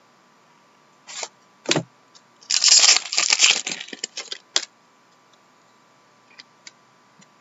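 Hockey card pack wrapper being torn open and crinkled by hand: two short rustles about a second in, then about two seconds of crackly tearing and crinkling, the loudest part, ending a little past the middle.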